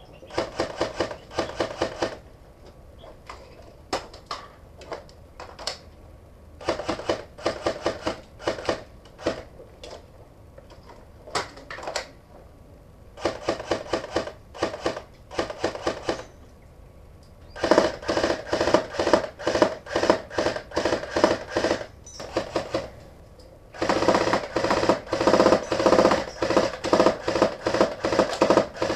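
Airsoft rifle firing in five rapid full-auto bursts with a few single shots between the first ones. The last two bursts are the longest and loudest, running several seconds each.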